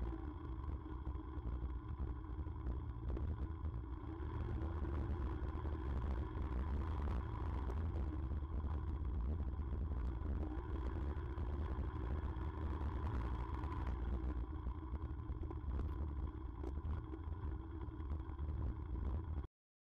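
Yamaha motorcycle running steadily while riding over a rocky dirt track, heard through a low-mounted action camera's microphone with a heavy low rumble of wind and road buffeting. The sound cuts off abruptly near the end.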